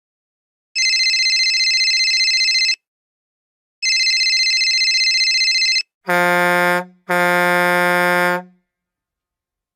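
Two high electronic beeps of about two seconds each, a second apart, then a low harsh electronic buzzer sounding twice, short then longer.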